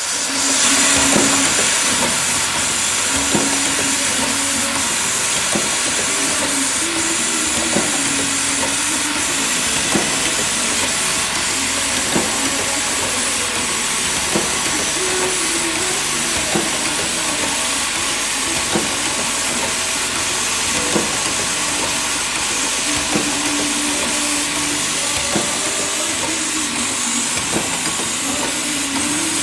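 Automatic chemical-anchor assembly machine running: a steady loud hiss with irregular clicks and knocks from its air-driven actuators, and a low hum that comes and goes.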